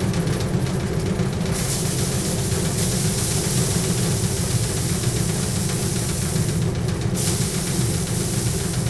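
Paddy drum thresher running steadily with a low rumble, its wire-loop drum rasping and hissing as bundles of rice straw are held against it to strip the grain. The hiss swells about a second and a half in and breaks off briefly near the end, between bundles.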